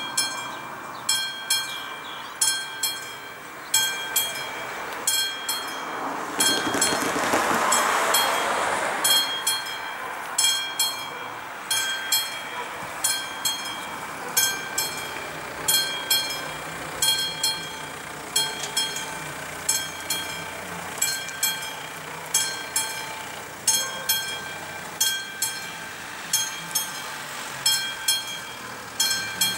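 Railway level-crossing warning bell ringing in regular strikes, a little more than one a second, signalling that a train is coming as the barriers come down. A rush of noise swells and fades about seven to nine seconds in.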